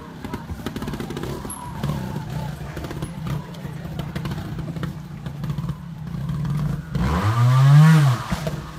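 Trial motorcycle engine running at low revs as the bike works up a rock step. About seven seconds in it is revved hard, rising and falling in pitch over about a second.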